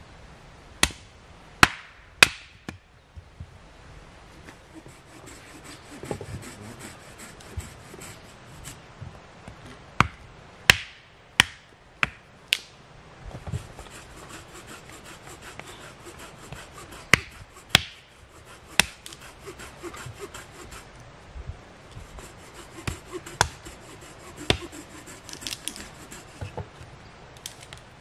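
Hatchet striking a piece of wood on a chopping stump: a dozen or so sharp knocks in uneven groups, with fine scraping and rasping of wood between them.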